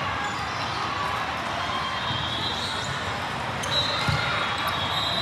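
Gym sounds from a volleyball rally: high shoe squeaks on the court, with a thump of the ball about four seconds in, over steady crowd chatter that echoes in a large hall.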